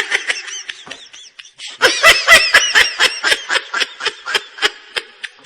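A person laughing hard, a fast run of high-pitched 'ha's that fades briefly about a second in and comes back loud from about two seconds in.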